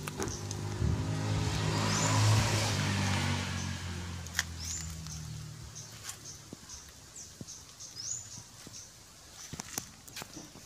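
A motor vehicle passes, its engine growing louder to a peak about two seconds in, then fading away over the next few seconds. A bird's short, high, rising chirps repeat throughout.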